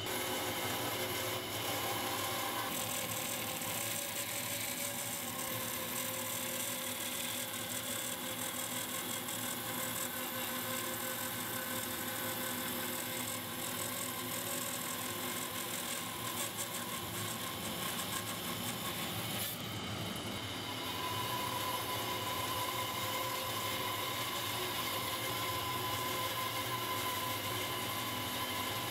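Bandsaw with a diamond-ground Fresh Cut blade running and ripping through hardwood, a steady whir and hiss of the blade in the cut. About two-thirds of the way through the sound dips briefly and then settles with a steady higher hum as a thicker block is fed.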